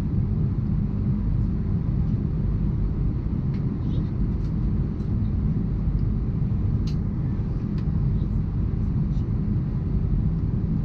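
Steady low cabin rumble of an Airbus A319 with IAE V2500 engines, engine and airflow noise heard from inside the cabin, even in level and pitch with a few faint ticks.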